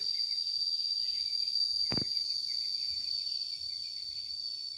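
Insects droning: one continuous, steady, shrill high-pitched tone, with a single short knock about two seconds in.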